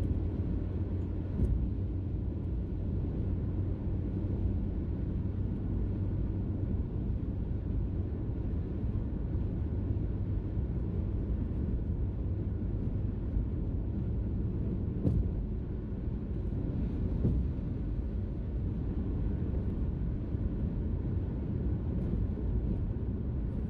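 Steady cabin noise of a car cruising on the highway: tyre and engine rumble heard from inside. There are a couple of faint ticks, one about a second and a half in and one about halfway through.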